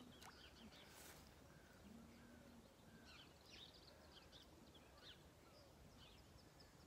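Near silence: faint outdoor ambience with small birds chirping steadily in the background, and a brief faint hiss about a second in.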